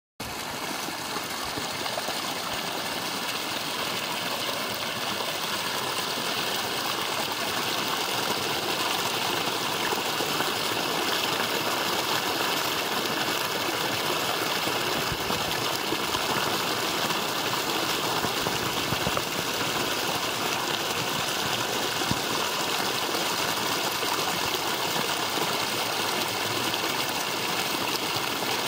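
Small spring-fed creek running: water rushing and splashing over grass and spilling into a pool, a steady rush that grows a little louder over the first few seconds.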